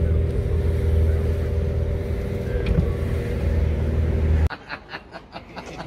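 Car driving, with engine and road noise heard from inside the cabin: a steady low rumble with a steady hum over it. About four and a half seconds in it cuts off suddenly to a quieter outdoor scene with a few sharp clicks.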